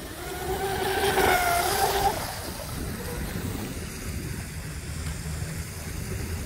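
Brushless electric RC boat motor (Traxxas Velineon 380) whining at speed for about two seconds, then cutting out abruptly, which the owner takes for the ESC's low-voltage cutoff. Afterwards only low wind rumble on the microphone.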